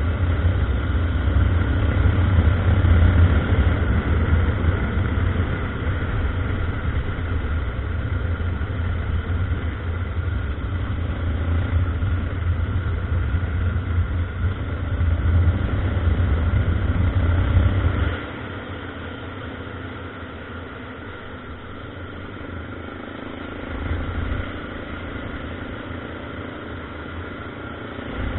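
Single-cylinder engine of a Honda NX 350 Sahara motorcycle running under way off-road with a heavy low rumble. About two-thirds of the way through it suddenly drops much quieter, with a brief swell a little later.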